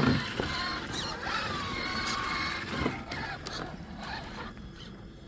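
Axial SCX6 Honcho RC crawler's electric motor and gear drivetrain whining, the pitch rising and falling, with a sharp knock at the start and another about three seconds in. It grows quieter near the end.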